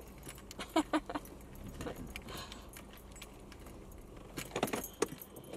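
Inside a moving car: steady low engine and road rumble, with irregular bouts of light jangling rattles about a second in and again near the end.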